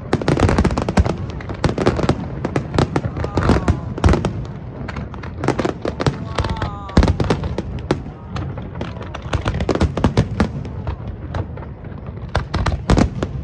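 Aerial fireworks shells bursting in a dense, continuous barrage of sharp bangs and crackles, with a few crowd voices heard between them.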